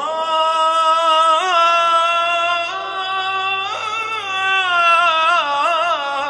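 A male nasheed singer's solo voice holds one long, drawn-out melismatic note, decorated with several quick vocal trills and turns and sinking slightly in pitch toward the end.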